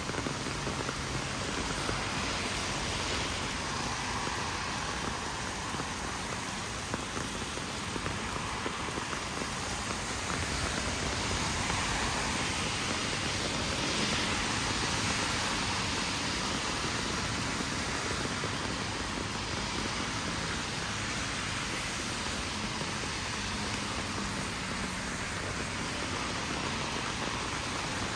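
Steady rain falling on a wet street, an even hiss with no breaks.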